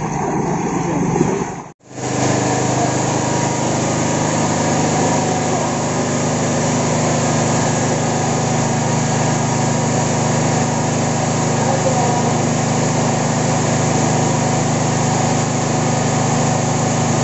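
A small petrol engine running steadily at one speed, a constant hum that does not change. Voices are heard for the first two seconds, before an abrupt cut to the engine.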